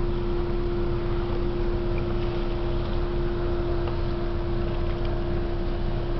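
Freighter Algoma Transport's engines giving a steady, even droning hum with one constant tone.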